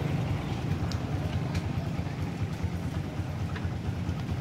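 Steady low rumble of an engine running, with a fast pulsing beat.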